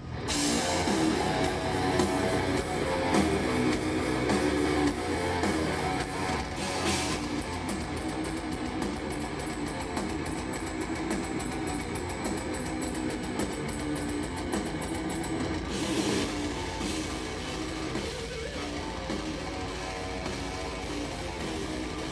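Live extreme metal band playing through a festival PA: heavily distorted electric guitar over a drum kit, coming in abruptly at the start after a brief lull.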